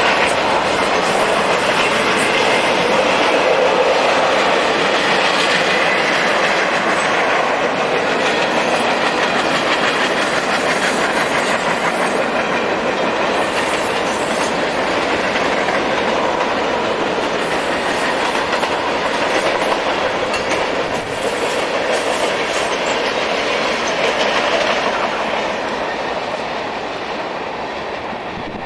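Union Pacific freight cars rolling past on the rails, a steady rumbling clatter of wheels and cars that fades gradually near the end as the train moves away.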